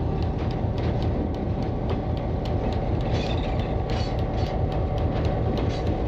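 EMD diesel road-switcher locomotive passing with its engine running as a steady low rumble, while the wheels of the train click over rail joints several times a second.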